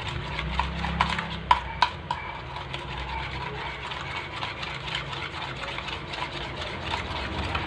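A metal fork whisking a beaten egg mixture in a ceramic bowl, clinking and scraping against the bowl in quick, uneven clicks, with the sharpest taps in the first couple of seconds. A low steady hum runs underneath.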